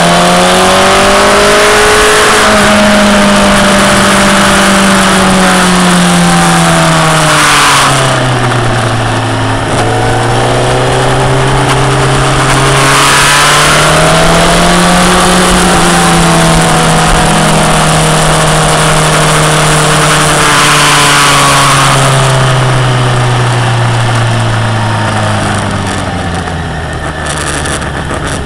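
Motorcycle engine heard onboard at speed over heavy rushing wind noise. The revs climb in the first couple of seconds, drop off about eight seconds in, rise again around twelve to fourteen seconds, and fall away over the last few seconds as the bike brakes and accelerates through corners.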